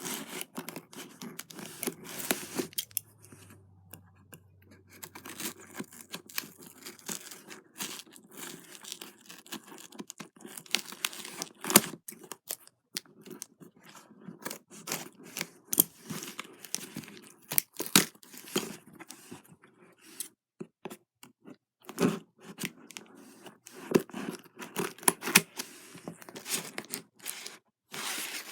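Parcel packaging being torn open by hand: a run of short rips, scrapes and sharp clicks, coming in bursts with brief pauses.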